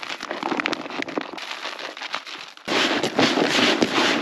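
Dry groundbait with pellets and grains being stirred and mixed by hand in a bucket: a crackling, rustling sound made of many small clicks, louder and denser from about two-thirds of the way through.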